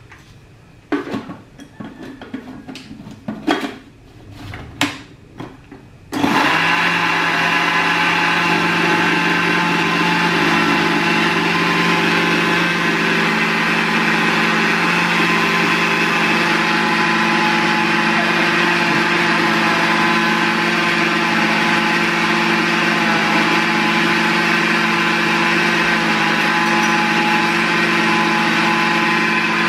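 A few knocks and clicks, then about six seconds in a countertop blender switches on and runs steadily at one speed, blending pancake batter of oats, banana and egg.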